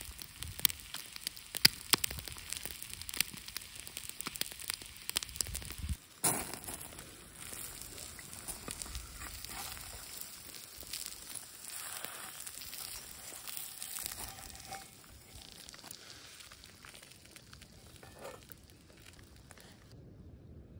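Eggs frying in a skillet over a campfire: sharp crackling pops over a sizzle for the first six seconds or so, then a softer, steadier sizzle.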